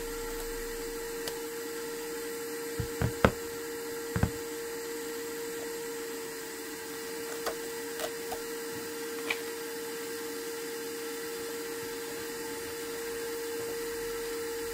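A small electric motor or fan hums steadily on one tone, with a handful of light clicks and taps; the loudest tap comes about three seconds in.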